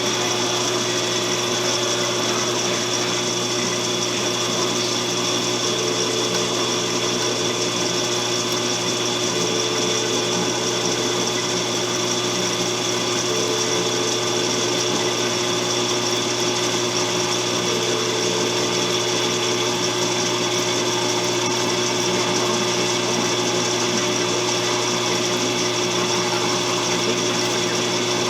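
Electric drill running steadily as it bores a 1/4-inch pilot hole through two layers of steel, a constant hum that holds one pitch throughout.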